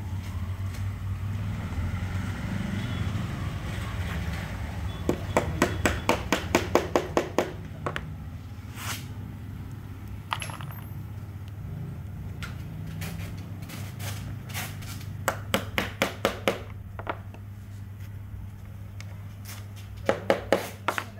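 Woodworking machinery humming steadily, with several runs of quick, sharp knocks at about four a second.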